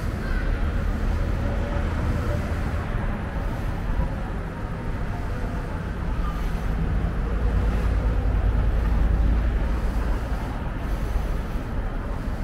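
Outdoor town ambience: a steady low rumble that swells about seven seconds in and eases off again, with a faint hum of distant traffic.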